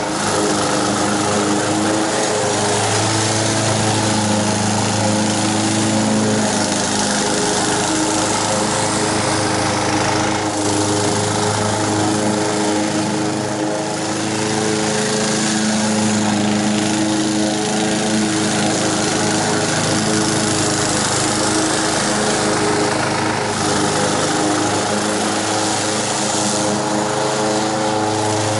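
Honda HR194 walk-behind mower's small four-stroke petrol engine running steadily while cutting grass.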